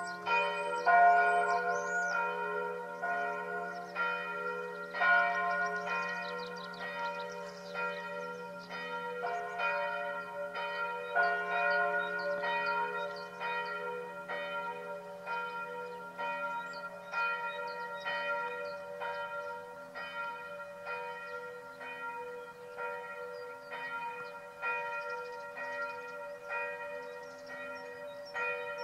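Church bells of the Benediktbeuern abbey church ringing a full peal: several swinging bells strike over and over in overlapping rhythm, their tones ringing on into each other above a steady low hum.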